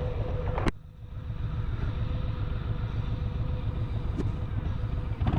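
Motorcycle engine idling with a steady, even low throb; a sharp click about a second in.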